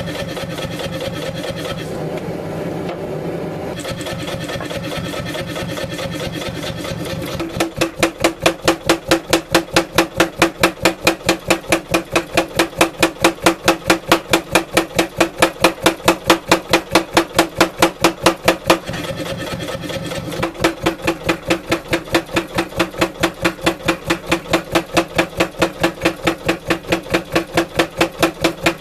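Power hammer with a 16 kg head forging a wootz steel ingot: a fast, even run of heavy blows, about four to five a second. It runs lighter and more evenly for the first several seconds and again briefly about two-thirds of the way in.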